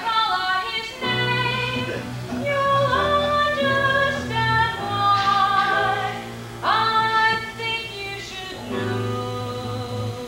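A musical-theatre number: long held sung notes over an instrumental accompaniment with a steady bass line.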